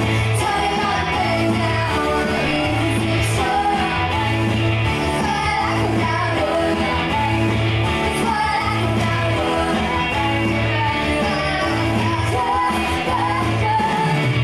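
Live pop-rock band playing a song: electric guitar, drum kit with cymbals and keyboard, with a girl singing over them.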